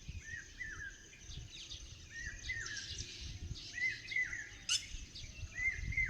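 Wild birds singing: one bird repeats a short two-note phrase about every second and a half, over quicker, higher chirps from other birds, with a low rumble underneath.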